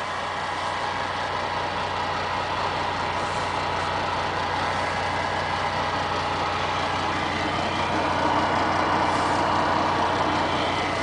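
Tractor-trailer's diesel engine running steadily at low speed, heard from inside the cab, a little louder near the end as the truck moves off.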